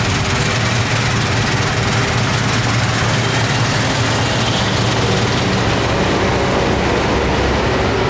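Claas Lexion combine harvester at work cutting and threshing wheat: a steady low engine drone under an even rushing noise from the machine.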